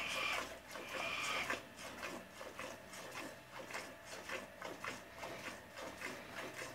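Milk squirting in quick jets into a metal pot partly full of milk as a cow is milked by hand, about two to three squirts a second.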